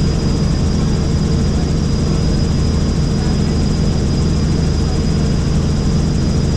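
Helicopter in flight heard from inside the cabin: a steady, loud drone of rotor and engine with a constant thin high whine above it.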